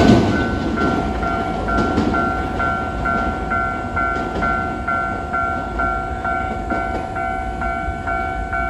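Japanese railway level-crossing warning bell in its normal low-tone setting, ringing a rapid electronic ding about three times a second. Train running noise dies away at the start, and a low rumble continues under the bell.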